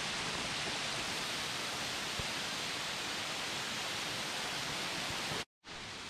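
Waterfall plunging over a rock ledge, heard close up as a steady, full rush of falling water and spray. The sound breaks off for a split second about five and a half seconds in, then the same rush resumes a little quieter.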